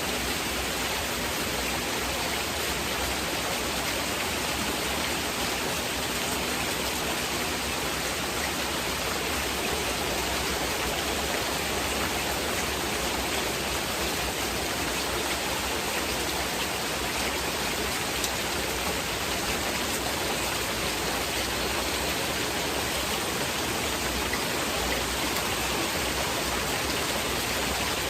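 Steady heavy rain, a continuous even hiss with no breaks or single drops standing out.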